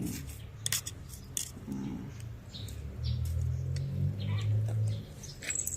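Birds chirping in short scattered calls, with a low steady hum for a couple of seconds past the middle.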